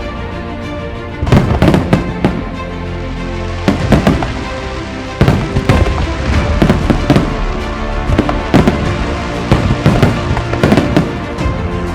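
Aerial fireworks going off in volleys of sharp bangs and crackles, starting about a second in, easing briefly, then coming almost without pause from about five seconds in; music plays steadily underneath.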